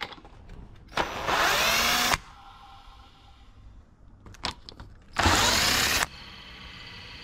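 A power drill spins the removed alternator of a BMW M5 F10 in two bursts of about a second each, its whine rising in pitch as it speeds up, followed near the end by a fainter steady hum. The alternator is being spun fast to bring out a slight noise that the mechanic blames on it.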